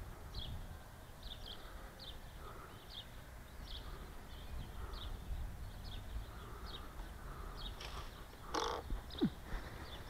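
A small bird's short, high chirps repeat every half second or so over a low wind rumble. Near the end comes a louder, harsh sound, then a short falling note.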